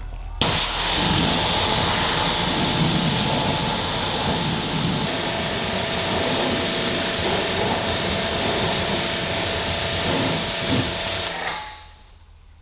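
Pressure washer spraying water onto a car's hood: a steady hiss of spray that starts about half a second in and cuts off near the end.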